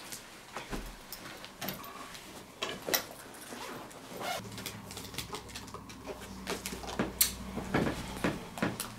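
Fabric backpack being handled and opened, with irregular rustling and small clicks as its contents are rummaged through.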